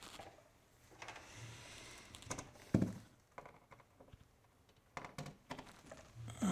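Light handling noises from setting up a sewing machine and its power cord: a soft rustle about a second in, a sharper knock near the middle, and a few quick clicks about five seconds in.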